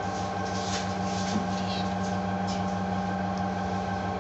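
Steady mechanical hum from kitchen machinery, a constant drone with a few faint light clicks over it.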